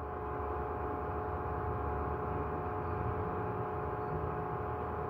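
Steady machine hum with several held tones over a low rumble, unchanging throughout.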